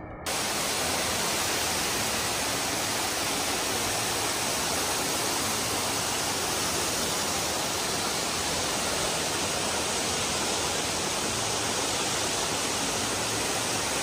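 Waterfall pouring onto rock: a steady, even rush of falling water with no break. It starts abruptly just after the start as background music cuts off.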